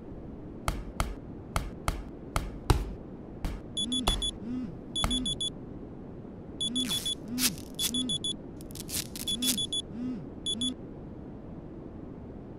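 Punches landing on a heavy punching bag, about eight sharp thuds in the first few seconds. Then an electronic alarm beeps in short bursts of rapid beeps, six bursts in all, which stop shortly before the end.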